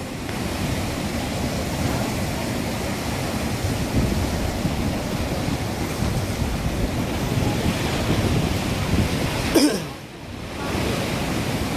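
Sea surf surging and washing through a narrow channel between lava rocks: a steady rushing wash of breaking water. It briefly drops away about ten seconds in, then resumes.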